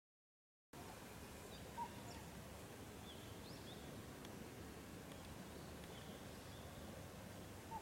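Faint steady outdoor background hiss with a few short, faint bird chirps, the clearest about two seconds in and near the end. It cuts in after a brief moment of total silence.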